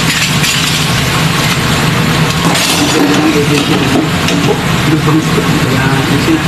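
Tap water running into a stainless steel sink over a steady low machine hum, with light clinks of utensils being washed.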